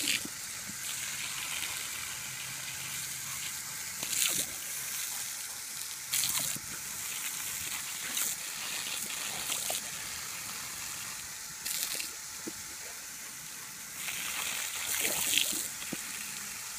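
Garden hose water spraying steadily with a hiss as a bullmastiff bites and laps at the stream, with several short bursts of splashing as its mouth catches the water.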